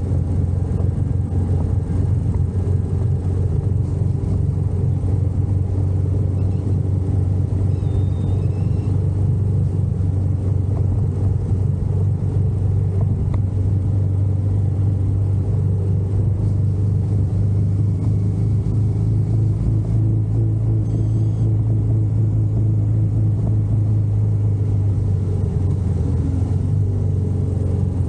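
Royal Enfield Meteor 350 Supernova's single-cylinder engine running steadily on the move, a constant low engine note.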